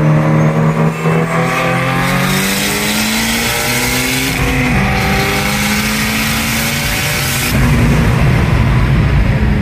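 Car engine pulling hard under acceleration. It runs loud and steady, its pitch shifting and stepping down briefly about halfway through, with a rush of hiss over the middle few seconds.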